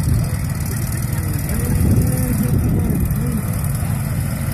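Several zero-turn riding mower engines running together as the mowers drive, a steady low engine hum with some rise and fall in pitch partway through.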